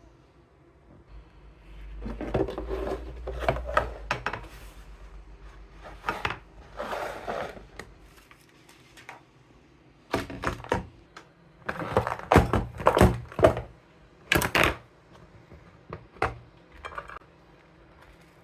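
Household objects being handled and set down: a series of knocks, clicks and thuds in clusters, with a low rumble under the first several seconds.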